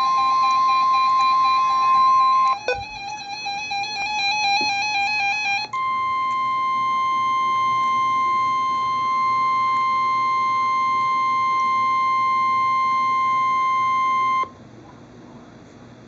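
Weather alert radios sounding a Special Marine Warning. First comes a warbling electronic alarm over a steady tone; the steady tone drops out after a couple of seconds. About six seconds in the warble stops and the National Weather Service's long, steady warning alarm tone plays for about nine seconds, then cuts off suddenly.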